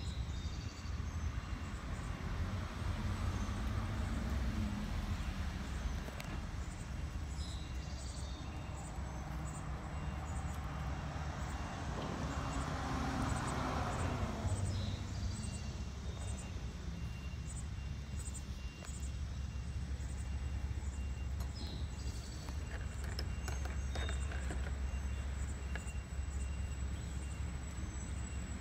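Outdoor street ambience: a steady low rumble, with a vehicle passing by that swells and fades about halfway through, and faint bird chirps.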